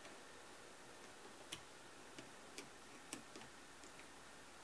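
Faint, irregular clicks, about five spread over a few seconds, as a screwdriver turns out the grip screw of a Smith & Wesson Model 620 revolver.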